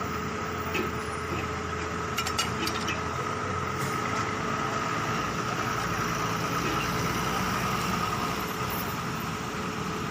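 Small motor of a miniature borewell drilling rig model running steadily with a steady whine, with a few light clicks a little after two seconds in.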